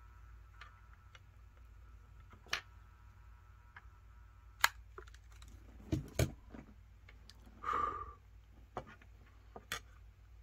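Weller 8200 soldering gun humming faintly and steadily while triggered, cutting off with a sharp click about four and a half seconds in. Then a few scattered clicks and knocks and a brief rubbing scrape as the gun and solder spool are handled and set down.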